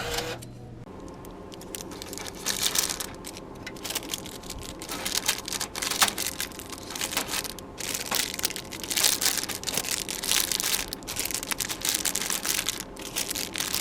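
Rapid, irregular crinkling and rustling with scattered clicks and clatter: hands working inside a snack vending machine, handling packaging and money.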